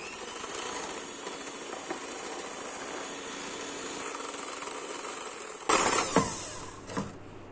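Electric hand mixer running steadily, its beaters whisking egg whites and sugar in a glass bowl. Near the end it briefly gets louder and harsher, followed by a single click.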